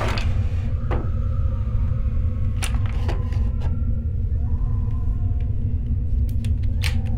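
A steady low rumbling drone, with a few short clicks and knocks as a nightstand drawer is pulled open and a silenced pistol is lifted out and handled.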